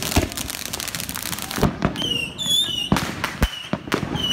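Consumer fireworks going off in the street: a ground fountain hissing out sparks amid a run of sharp firecracker bangs and cracks. About halfway through, a high wavering whistle starts coming and going over the bangs.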